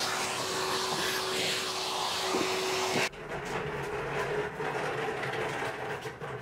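A workshop vacuum hose sucking in an engine bay: a loud, steady rushing noise with a constant whine through it. About three seconds in it cuts off abruptly, and a quieter low hum with light clatter follows.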